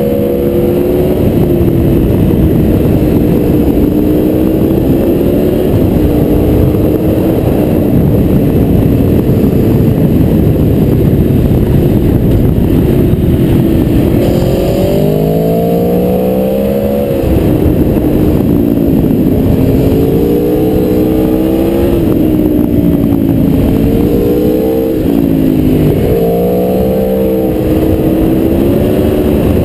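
Aprilia Tuono V4R's V4 engine at riding speed, heard from on board, its pitch rising and falling repeatedly with the throttle through a run of bends. A dense rush of wind noise lies under it.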